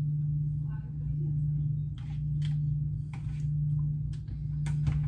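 Scattered clinks and knocks of kitchen utensils and dishes being handled at a counter, over a steady low hum.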